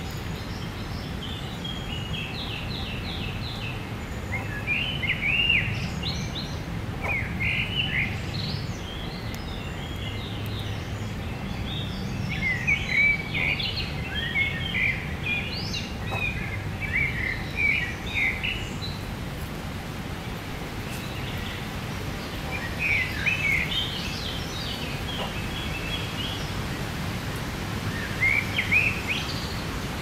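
Songbirds singing in short, varied phrases, several times over, with a steady low background rumble underneath.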